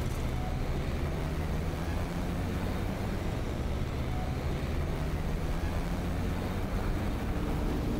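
Film sound effect of a small spaceship's engines as it flies fast and low: a steady rushing roar over a low droning hum, with a second, higher hum coming in near the end.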